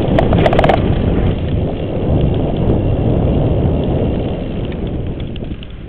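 Wind buffeting the bike-mounted microphone over the rumble of a Cannondale mountain bike rolling at speed, with a quick run of sharp clicks in the first second, the rear freewheel ticking as the rider coasts; the rumble eases off near the end.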